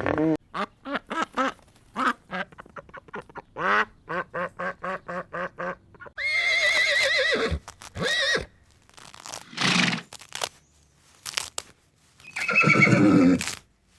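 A rapid series of short animal calls, then a horse whinnying with a long, wavering call, and again near the end.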